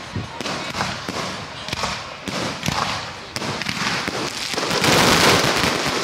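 Fireworks going off in quick succession: a run of sharp bangs, then from about four and a half seconds in a dense burst of crackling, the loudest part.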